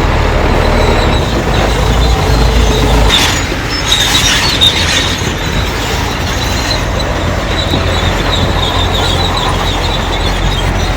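Crawler bulldozer working: a steady diesel engine rumble with the high squeal of its steel tracks, briefly louder and noisier about three to five seconds in.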